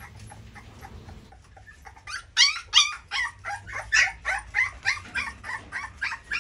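Young puppies crying: short high-pitched yips and whimpers, faint at first, then a fast run of loud cries about three a second from about two seconds in.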